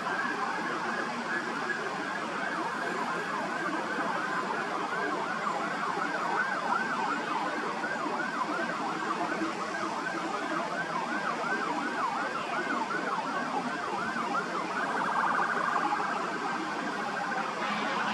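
Emergency vehicle siren sounding a rapid yelp, its pitch sweeping up and down about three times a second, over steady background noise. Near the end the yelp gives way to a steadier tone.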